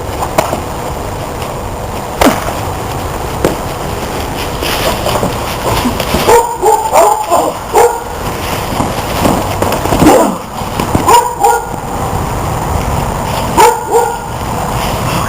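A dog barking and yelping in several short bunches of calls, over a steady rushing background noise.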